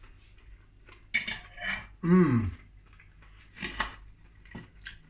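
Cutlery clinking and scraping on a plate while battered cod is being eaten, in short separate bursts, with a brief hummed 'mm' from the eater about two seconds in.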